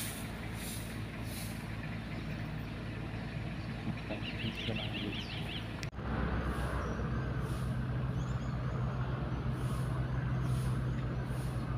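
Steady low motor hum that steps up louder after a sudden break about six seconds in, with a brief run of high chirps shortly before the break.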